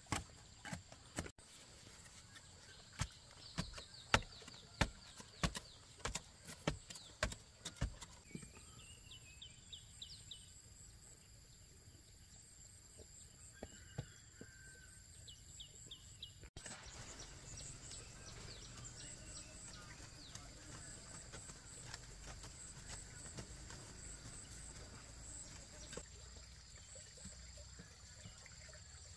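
Wooden pole knocking down soil as earth is tamped around a freshly set wooden hut post: a run of sharp knocks, about two a second, for the first eight seconds. After that, birds chirp over a faint high steady tone.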